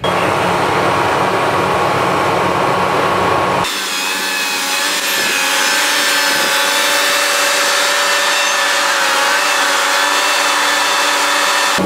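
Shear-wave seismic vibrator trucks running: loud, steady mechanical machine noise carrying several steady tones. A little under four seconds in the sound changes abruptly to a higher, thinner hum with a slightly wavering tone.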